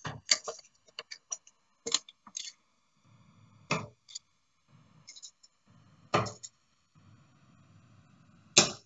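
Steel-tip darts striking a Winmau Blade 5 bristle dartboard: three sharp thuds about two and a half seconds apart. Before them comes a quick run of lighter clicks as darts are pulled out of a board.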